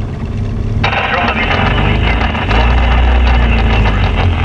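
A sailboat's outboard motor running with a steady low drone under a loud hiss that cuts in about a second in. The skipper says something is wrong with the motor.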